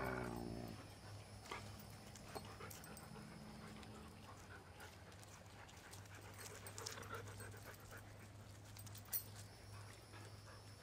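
A husky panting quietly, with faint scattered clicks and rustles.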